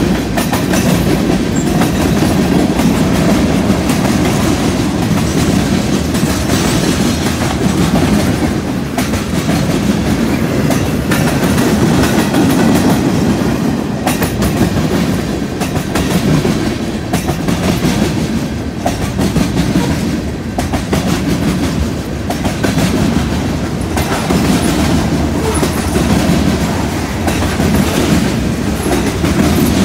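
Freight train's tank cars and covered hoppers rolling past close by: a steady, loud rumble of steel wheels on the rails, with a running clatter of clicks from the wheels.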